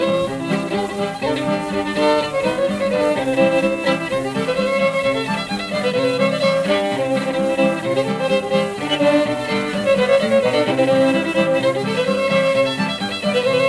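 Instrumental background music: a melodic tune over sustained accompaniment.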